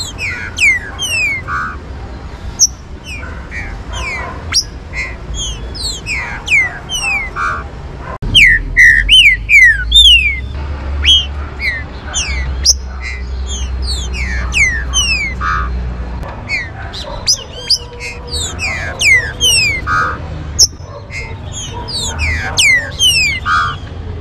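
Birdsong: many short, falling whistled notes and chirps, several a second and often overlapping, from a caged green-winged saltator (trinca-ferro) and other birds. A low rumble runs under it from about a third of the way in to about two-thirds.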